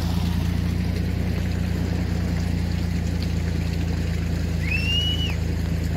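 Toyota Land Cruiser 80-series engine idling steadily, not under load. A short whistle rises and falls about five seconds in.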